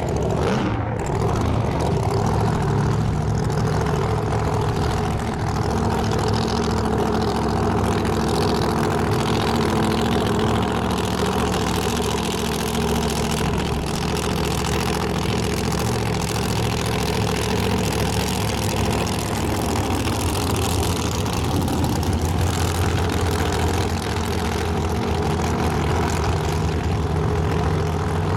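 Big supercharged V8 of a Pro Slammer drag car running steadily at idle, loud and low, with no hard revving.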